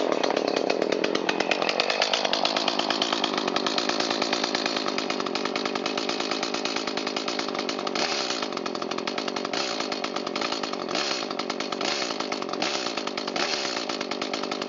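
Echo CS-310 chainsaw's small two-stroke engine running, settling to idle over the first couple of seconds, then given about five quick snaps of throttle from about eight seconds in, each dropping straight back to idle. The carburetor's idle mixture has just been adjusted to what it should be.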